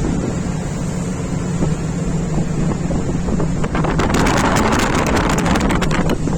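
Strong wind buffeting the microphone over a boat engine's steady low hum. About four seconds in, a burst of splashing and spray lasts for about two seconds, as a wave breaks against the boat.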